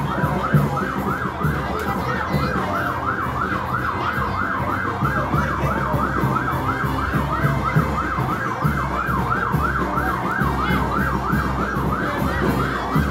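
Electronic vehicle siren yelping, a fast rising-and-falling wail about four times a second, over a low rumble. Right at the end a slower siren wail begins to rise.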